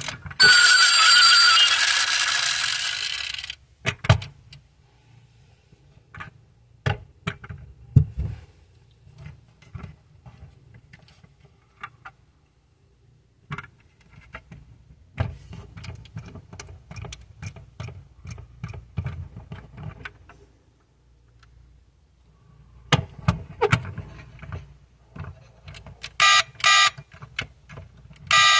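Built-in sound module of a 1/24-scale die-cast Mercedes-AMG Vision GT model car playing a car sound effect that fades out over the first few seconds. It is followed by scattered clicks and taps from the model's gull-wing doors and parts being handled. Near the end the speaker gives a few short, loud electronic tone bursts.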